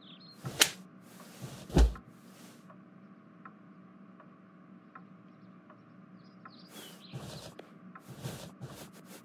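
Two sharp knock-like thumps about a second apart, over a faint steady hum. A cluster of softer taps and rustles follows near the end.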